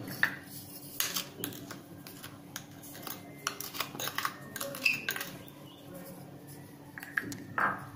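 A small glass bowl and a wooden spoon knocking and scraping against a glass dish as powdered sugar is tipped and scraped out onto roasted finger-millet flour. The sound is a scatter of light, irregular clinks and taps.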